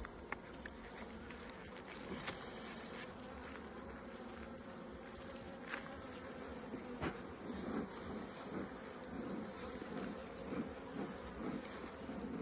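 Honeybee colony buzzing steadily around an open hive while its frames are inspected, with a few light clicks about 2, 6 and 7 seconds in.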